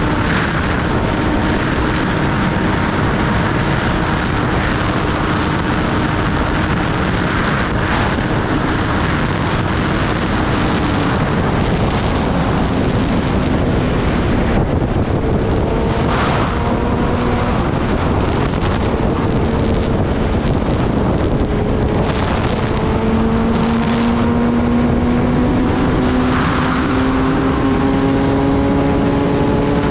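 Kawasaki Ninja ZX-10R's inline-four engine running at road speed under heavy wind rush on the microphone. The engine note holds steady, dips slightly about halfway through, then climbs steadily over the last several seconds as the bike accelerates.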